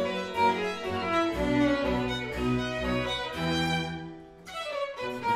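Background music played on bowed string instruments, a string melody with changing notes that thins out and grows quieter about four seconds in.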